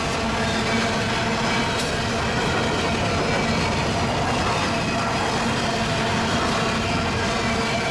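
Covered hopper cars of a freight train rolling past, their steel wheels on the rails making a steady, unbroken rolling noise.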